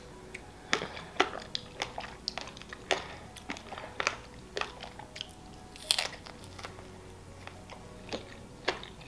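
Close-miked chewing of a chocolate-covered strawberry: wet mouth clicks and smacks at irregular intervals, the loudest about six seconds in.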